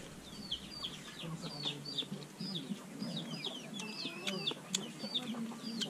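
Chickens calling in a yard: low clucks under repeated short, high, falling peeps, a few each second.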